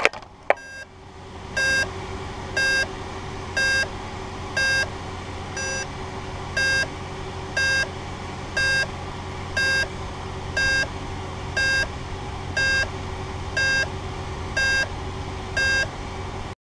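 Downed Blade 350 QX quadcopter beeping, a short high beep about once a second, over a steady low electrical hum, after a brief knock about half a second in. The beeping is the crashed drone lying still, its motors stopped.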